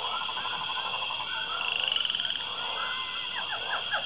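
Chorus of frogs croaking: repeated short pulsed calls and trills, with some quick falling notes near the end.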